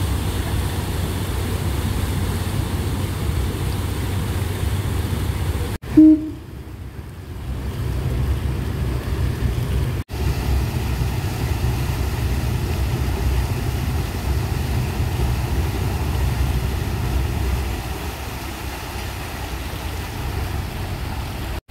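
Tall ship's engine running with a steady low rumble while its propeller churns the water at the stern, reversing thrust as the ship works in to dock. About six seconds in there is one brief, loud pitched sound.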